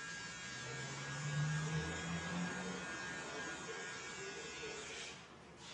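Electric trimmer buzzing steadily against the customer's face. It cuts out near the end. A louder, low, steady droning tone sits over it during the first half.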